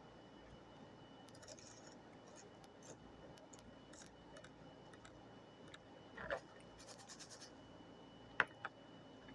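Faint scratching and small clicks of objects being handled, with a soft knock about six seconds in and two sharp clicks close together near the end.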